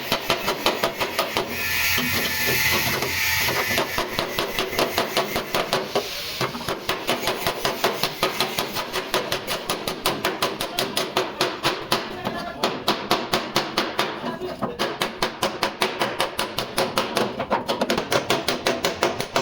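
Rapid, even hammer blows on car body sheet metal, several a second: a dented panel being beaten out during accident repair.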